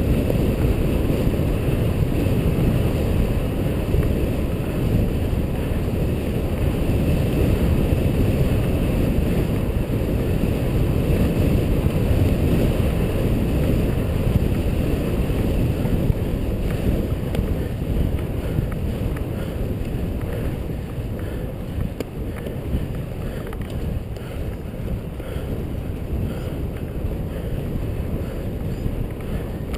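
Wind rumbling against the microphone of a GoPro HD Hero moving along a road at speed, a steady low buffeting. It eases a little in the last third.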